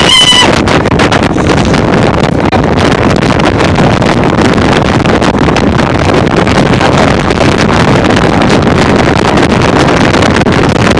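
Wind buffeting the microphone over a motorboat running through rough, choppy water, loud and steady. A brief high-pitched squeal cuts off about half a second in.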